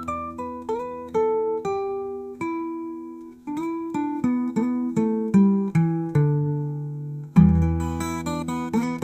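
Blues guitar music: single plucked notes picked one after another, each ringing and fading, with a louder strum about seven seconds in.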